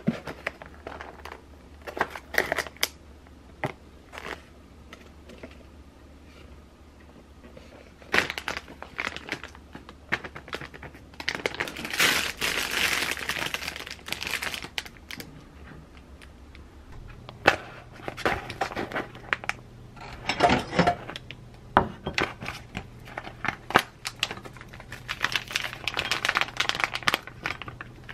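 Plastic packaging crinkling and rustling in irregular bursts as groceries are unpacked and handled, with scattered light knocks and taps. The longest, loudest crinkling comes about twelve seconds in.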